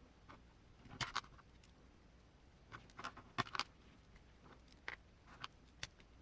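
Small RC transmission parts clicking and tapping as they are handled and fitted together: a few irregular light clicks, the loudest cluster about three and a half seconds in.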